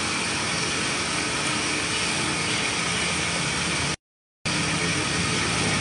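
Steady rushing background noise of a commercial kitchen, with the sound cutting out completely for about half a second about four seconds in.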